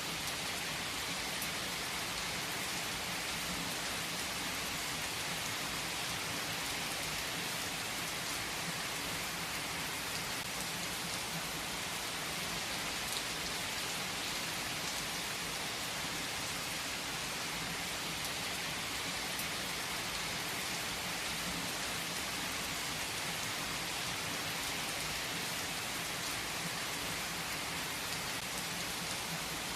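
Steady rain falling, an even hiss with now and then a sharper drop tick.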